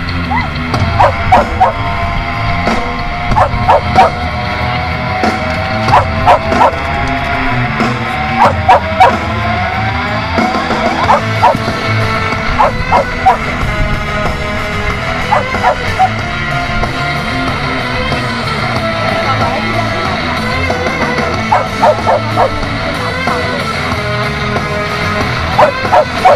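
A dog barking repeatedly in short, sharp barks, in bursts of two or three, with a quieter stretch in the second half before the barks come again near the end. Music plays in the background.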